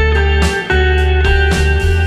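Background instrumental music, guitar-led over sustained bass notes, with the notes changing every half second or so.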